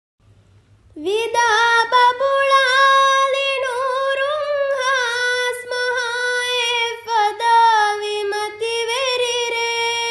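A young girl's voice chanting a Quran recitation in long, ornamented held notes, starting about a second in.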